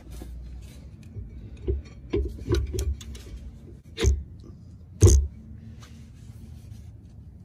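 Metal clinks and knocks as a rear disc brake caliper is handled over the rotor and set onto its bracket, with a quick run of small knocks, then two louder knocks about a second apart.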